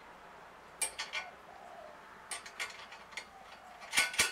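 Metal hardware clinking as a bolt and nut are handled on the steel bracket of a motorcycle side-wheel conversion frame: scattered, uneven clicks, a few about a second in, more in the middle, and the loudest cluster near the end.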